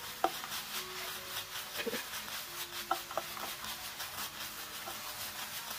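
A spatula scraping and stirring a dry, crumbly coconut-and-dried-shark mixture around a nonstick frying pan in quick repeated strokes, with a few sharper clicks of the spatula against the pan. This is the sautéing stage, stirring until the moisture is fully cooked off.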